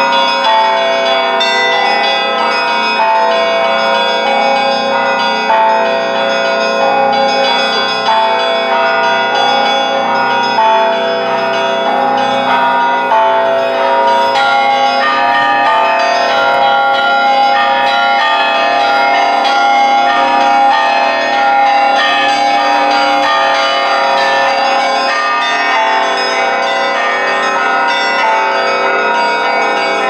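Russian Orthodox festive bell ringing (prazdnichny zvon): a full set of church bells rung together, smaller bells chiming quickly over a low bell struck at a steady beat.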